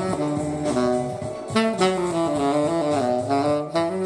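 Saxophone playing a fast jazz line of short notes that step quickly up and down in pitch.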